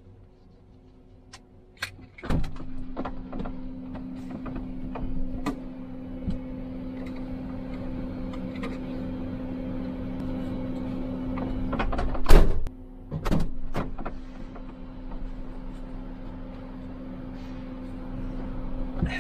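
Truck cab door sounds: a loud thump about two seconds in, where a steady hum sets in, scattered knocks and clunks, then a hard slam about twelve seconds in and a further thump just after.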